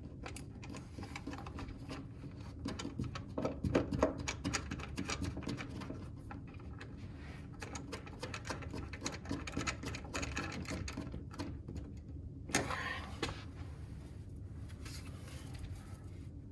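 Handling noise from working on cables: a dense run of small irregular clicks and rustles, with a short louder scrape near the end.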